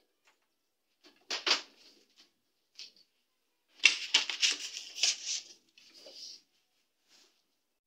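Thin plastic panels of a DIY cube storage cabinet being handled and set in place: a sharp knock about a second and a half in, then a dense run of clattering and scraping plastic from about four to five and a half seconds in.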